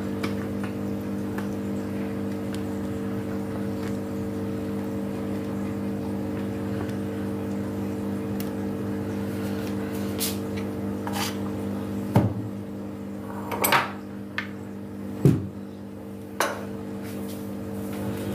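A steady machine hum made of several fixed tones, from a kitchen appliance motor. In the second half come a few sharp knocks and clinks of cookware, the loudest about twelve and fifteen seconds in.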